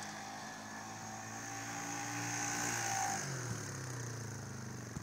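Polaris Sportsman ACE engine running steadily under throttle, with the revs dropping about three seconds in.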